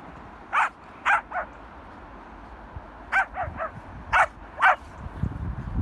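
Dogs barking at play, Komondors and Mudis together: about eight short barks in three quick clusters. A low rumbling noise builds near the end.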